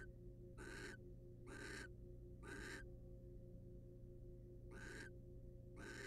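Barn owl giving a run of short, rasping hisses (the snoring call), about one a second with a pause of nearly two seconds in the middle. A steady electrical hum runs underneath.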